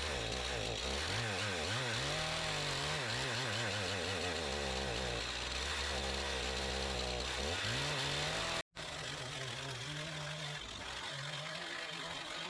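Two-stroke chainsaw running under load as it rips a pine log lengthwise in a homemade chainsaw mill. The engine speed rises and falls as the bar works through the wood. There is a brief dropout about nine seconds in, after which it runs on a little quieter.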